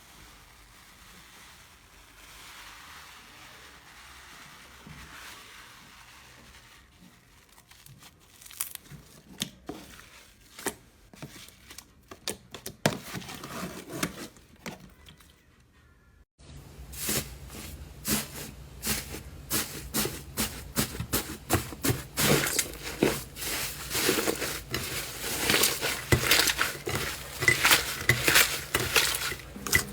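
Slime being squished and stretched, with sticky crackling and popping, sparse at first and then denser and louder after a cut about halfway through.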